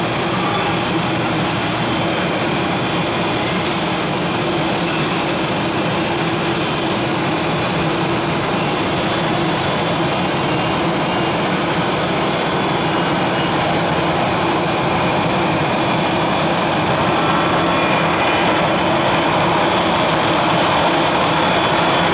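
Airbus A320 jet engines running steadily with a low hum, growing louder over the last few seconds as thrust comes up and the takeoff roll begins.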